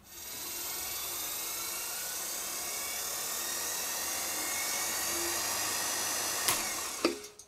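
Record Power Coronet Herald wood lathe running at 1055 rpm, a steady whirr from its DC motor's cooling fan and poly-V belt drive with a thin high whine. About six and a half seconds in, a click as the emergency stop is pressed, and the whirr dies away within about a second: the spindle stops almost instantly, with no coasting.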